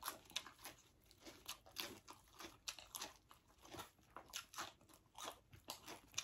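Close-miked eating: a quick, irregular run of crunches and chewing of marinated raw crab with fresh lettuce, mixed with lettuce leaves crinkling as they are folded by hand.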